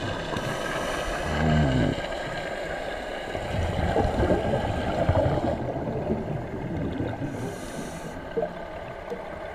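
Scuba breathing heard underwater: a hiss from the regulator on each inhale, twice, with a gurgle of exhaled bubbles between. A brief low pitched sound rising in pitch about a second and a half in.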